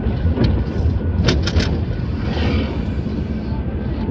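Steady low rumble of a car's engine and tyres heard from inside the cabin while driving on a wet road, with a quick run of sharp clicks about a second and a half in.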